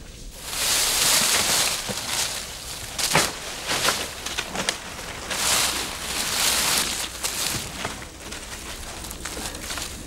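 Armfuls of thin leafy branches rustling and crackling as they are thrown down and spread, in several swells with a few sharp twig snaps.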